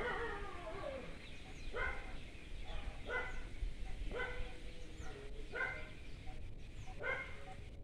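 An animal calling repeatedly outside, six short pitched calls about one every second and a quarter, with faint high chirps between them.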